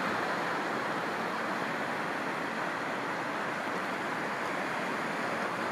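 Steady wash of small ocean waves breaking and running up a sandy beach.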